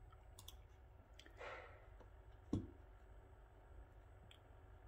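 Faint, scattered clicks of a laptop's keys and buttons, with a short soft rush of noise about a second and a half in and one dull knock about two and a half seconds in.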